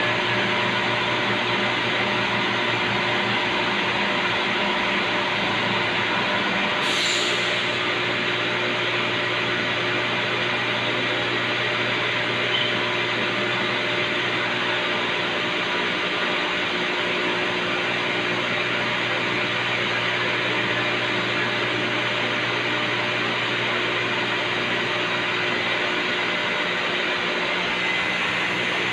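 Steady hum of a running CNC vertical machining centre, with several steady tones over a noisy background. There is a short hiss about seven seconds in, and some of the tones stop there.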